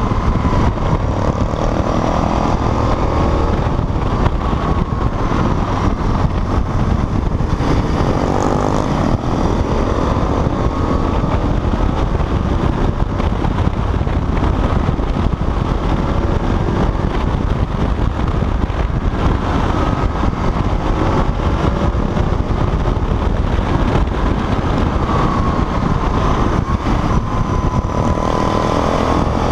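Aprilia Tuono's V-twin engine heard from the rider's seat, revving up and down in pitch as the bike accelerates and slows, under heavy wind rush on the microphone.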